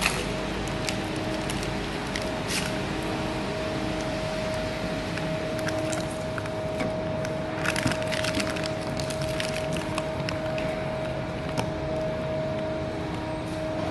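Hands handling a roach-bomb fumigation canister, its foil sachet and plastic cup and lid: scattered crinkles and light plastic clicks, with a burst of crackling about eight seconds in. A steady hum runs underneath.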